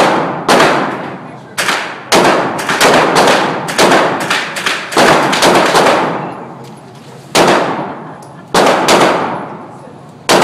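Pistol shots at a shooting range, well over a dozen in irregular quick strings with short pauses, each ringing out in a long echo.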